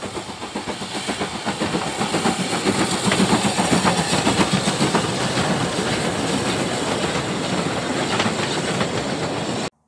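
Steam train passing at speed: a fast, even beat of exhaust and wheel clatter with steam hiss over it, building to its loudest midway, then cutting off suddenly near the end.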